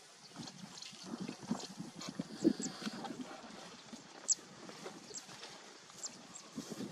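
African elephants moving through grass close by: irregular rustling and crunching of grass and heavy footfalls. Short high chirps come in now and then.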